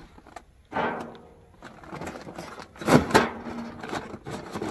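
A bag of charcoal being set into the steel firebox of an offset smoker: paper rustling and scattered bumps, with a louder clunk about three seconds in.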